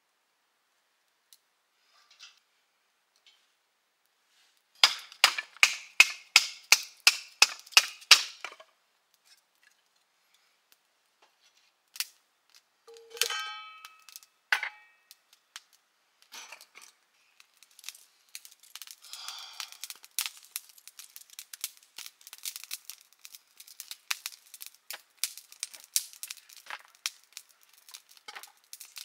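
A quick run of about a dozen sharp metallic strikes that ring, about four a second, then a single ringing clang, followed by a long stretch of faint, irregular crackling and ticking.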